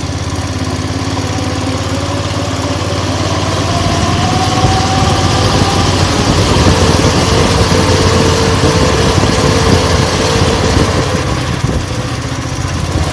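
Single-cylinder 170F engine, freshly rebuilt with a new crankshaft and connecting rod, idling and then revving up about four seconds in with a rising whine. It holds the higher revs and drops back toward idle near the end, running without a knock.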